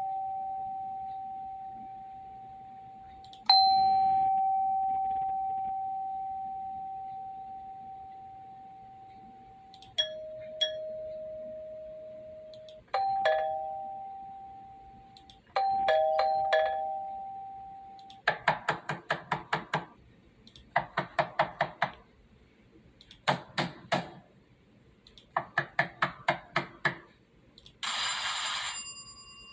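A series of doorbell sounds played one after another. First come single chime strikes that ring on and slowly fade, then two-note ding-dong chimes (a high note then a lower one). After that come four short bursts of a rapidly ringing electric bell, and a harsh buzz near the end.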